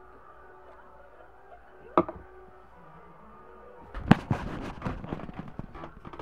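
A single sharp pop about two seconds in, as a small glass held by suction over the lips comes free. About four seconds in, a burst of knocking and rustling from the camera being handled.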